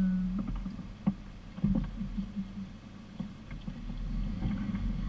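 Off-road 4x4's engine running at low speed along a muddy track, with a couple of sharp knocks from the body and suspension over the ruts, about one and nearly two seconds in. A held tone stops just after the start.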